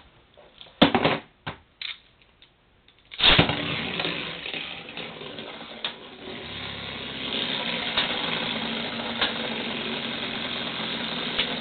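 A few short clicks, then about three seconds in a Beyblade is ripcord-launched onto a hard plastic lid. Spinning Beyblade tops whir and rattle steadily on the plastic, with occasional sharp ticks as they strike each other.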